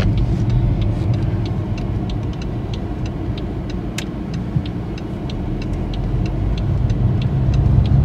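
Car interior noise while driving: a steady low rumble of engine and road, easing slightly in the middle and building again near the end, with a scatter of faint ticks over it.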